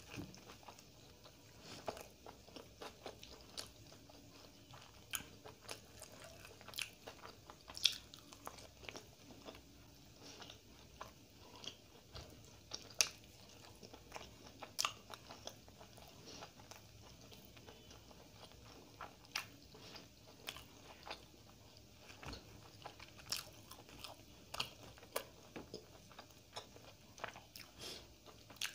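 Close-miked eating sounds from someone eating roti and chicken curry by hand: chewing and wet mouth smacks with frequent sharp, irregular clicks.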